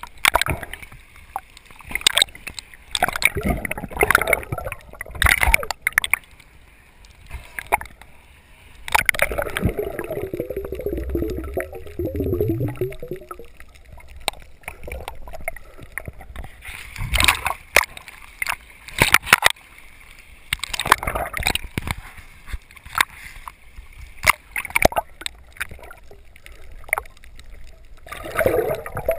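Water sloshing and splashing against a camera's waterproof housing held just under the surface, with irregular sharp clicks and crackles, and a stretch of gurgling about ten seconds in.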